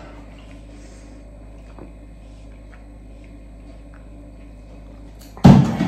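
Sipping from a plastic water bottle's spout, with a few faint sips and swallows against quiet room tone, then a sudden loud burst near the end.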